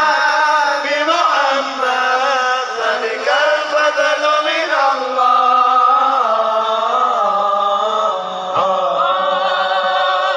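Sholawat, Islamic devotional praise of the Prophet, chanted in Arabic by voices in long, held melodic lines, amplified from the stage.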